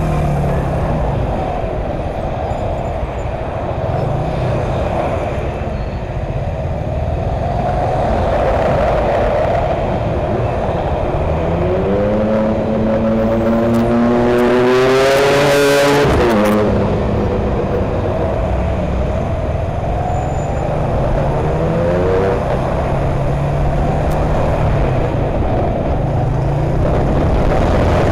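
Suzuki GN125 motorcycle's single-cylinder four-stroke engine running under way, with road and wind rush. About twelve seconds in the engine revs climb steadily for a few seconds, with a rising rush of noise at the peak, then drop abruptly; a few seconds later it revs up again briefly.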